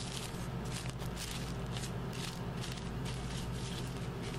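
Marker pen stroked across a plastic trash bag: a run of short scratchy strokes, several a second, as letters are written, with the bag's plastic crinkling under the hands. A steady low hum lies underneath.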